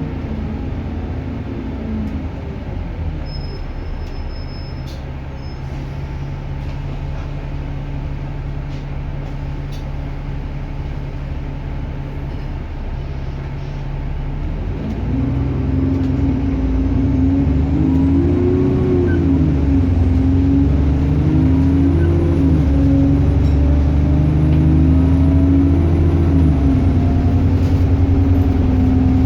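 Diesel bus engine under way: it drops in pitch and runs lower for a while, then grows louder about halfway through as the bus accelerates, with a thin high turbo whine rising above the engine.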